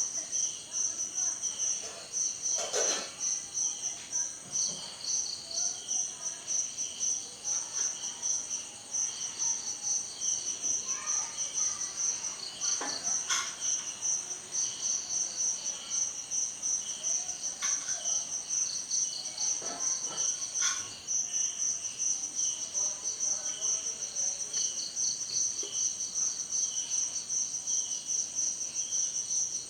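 Chorus of crickets and other insects chirping: several overlapping high, pulsing calls over a constant high whine, with a few short clicks scattered through.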